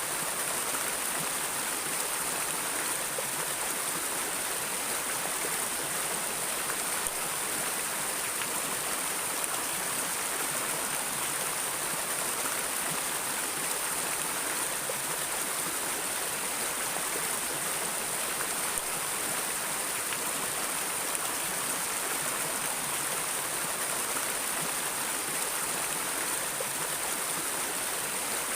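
River water flowing steadily, an even rushing sound with a strong high hiss and no breaks.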